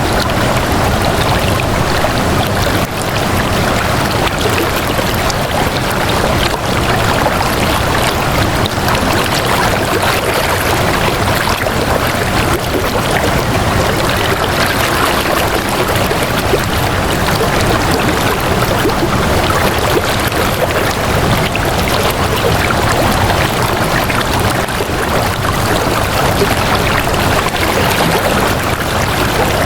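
Steady, unbroken rush of flowing water, like a stream.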